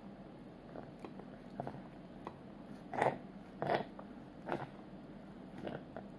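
A small fork stabbing and scraping into the crisp breading of a fried shrimp on a plate, making a series of short crunches. Three louder stabs come close together about halfway through.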